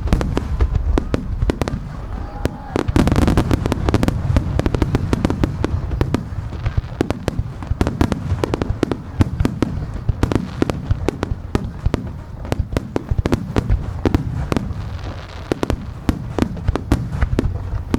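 Aerial fireworks display: shells bursting in a rapid, unbroken barrage of deep booms and sharp cracks, thickest a few seconds in.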